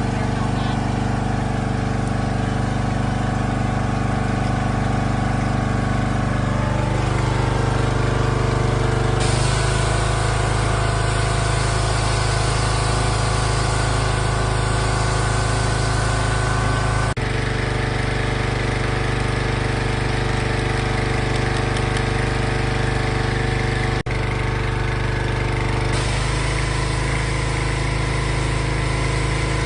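Gas pressure washer engine running steadily. Its pitch shifts a little about seven seconds in, a rushing hiss rises sharply at about nine seconds, and the sound changes abruptly again near seventeen and twenty-six seconds.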